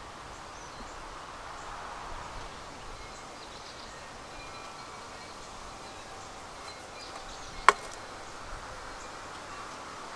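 Honeybees buzzing steadily around an open hive, with a single sharp click late on.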